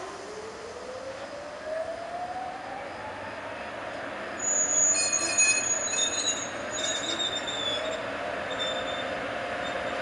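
FS E655 chopper-controlled electric locomotive pulling away with a heavy freight train: its traction electronics give a whine that rises steadily in pitch as it accelerates, then starts climbing again from a lower pitch later on. From about halfway through, high squealing tones come in over it, typical of wheels squealing on the rails, and this is the loudest part.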